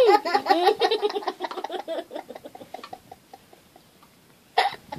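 Young children giggling: rapid pitched bursts of laughter that trail off over the first two to three seconds, then a short fresh burst of laughter near the end.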